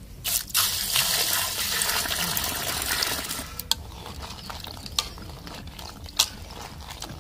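Water poured into a metal kadhai full of freshwater crabs, splashing for about three seconds. Then hands swish and rub the crabs in the water, with a few sharp clicks as shells knock against the pan.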